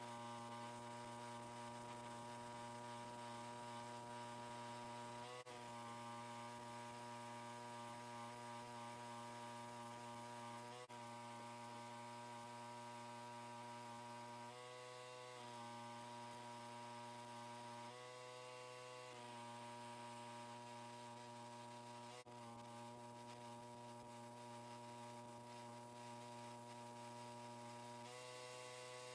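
Faint, steady electrical hum with a stack of even overtones, broken briefly three or four times.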